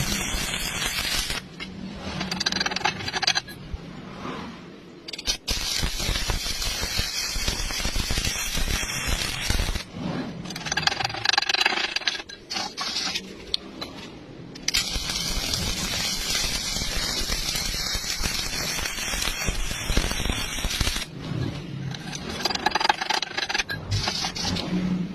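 Welding arc crackling and hissing in long stretches, broken by several quieter pauses.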